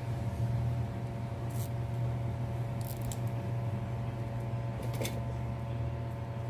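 A steady low hum in the workshop, with a few faint clicks as wire leads and side cutters are handled at a ceiling fan's stator.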